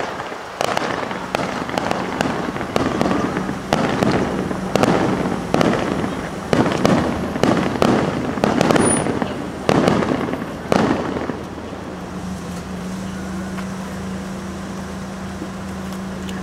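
Aerial fireworks finale: shells bursting in rapid succession, about a dozen loud booms with crackle between them, stopping about eleven seconds in. After that, a steady low hum is left.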